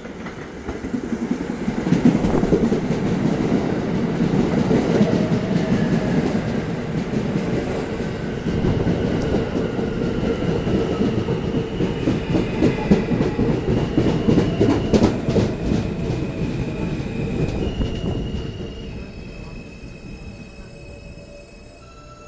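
New York City Subway R160 train pulling into the station: wheels rumbling and clacking over the rails while a motor whine falls in pitch as it brakes. The noise eases off about eighteen seconds in as the train comes to a stop, and a few steady high tones remain.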